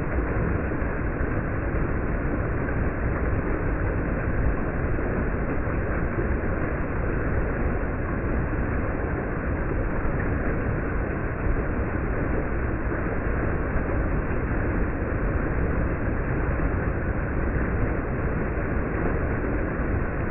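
Creek water rushing over a rock ledge and between boulders in a steady, unbroken rush, heavy in the low end and with little treble.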